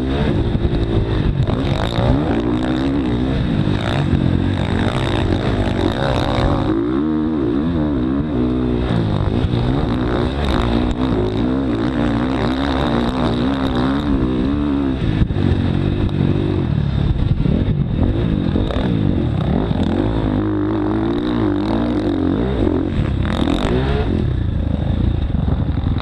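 Motocross bike engine heard on board, close to the microphone, revving up and falling back over and over as the bike is ridden around a dirt track.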